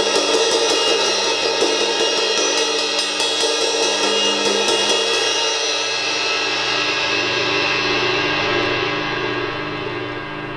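18-inch XIII series crash cymbal struck lightly with a drumstick in quick repeated strokes for about five seconds, building a shimmering wash. It is then left to ring and slowly fade.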